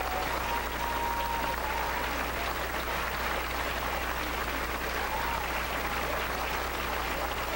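Large crowd applauding steadily, with dense overlapping clapping that holds at an even level throughout.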